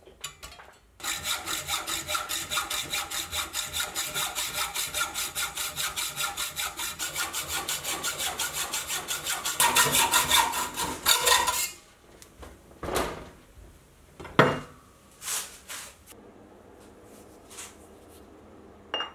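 Hacksaw blade cutting through a mild steel bar held in a vise, in rapid, even strokes that stop suddenly about two-thirds of the way in. A few separate metal knocks follow.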